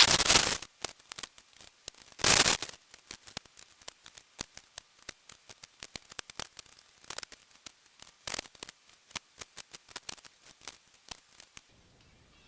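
Newspaper and masking tape being torn and peeled off freshly painted tractor wheel rims. Two loud rips come in the first few seconds, then scattered crinkles and ticks of paper that stop shortly before the end.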